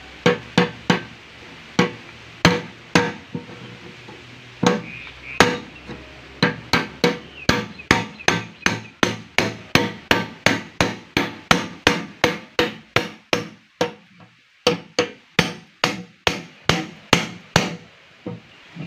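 Hammer blows driving a blade through the tin lid of a metal drum, cutting the sheet metal: sharp metallic strikes with a slight ring. A few come scattered at first, then they fall steadily about two a second, with a short pause about three-quarters of the way through.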